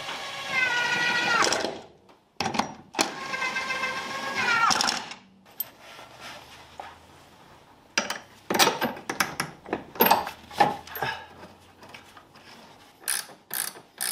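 A cordless power tool whines twice in the first few seconds, once briefly and once a little longer, its pitch dropping as each run stops, as the shock absorber mounting bolts are run in. It is followed by a run of irregular sharp clicks and knocks from hand tools on the bolts.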